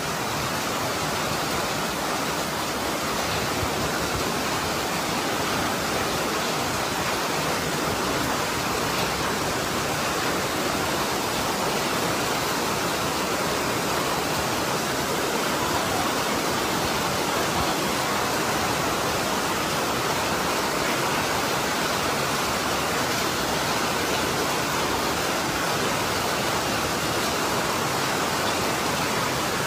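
Fast-flowing floodwater rushing and churning in a torrent, a steady, unbroken noise of water with no change in level.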